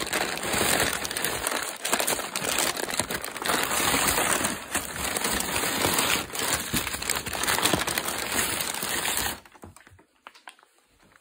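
Brown kraft packing paper crumpling and rustling as hands dig through it, a dense run of small crackles that stops abruptly near the end.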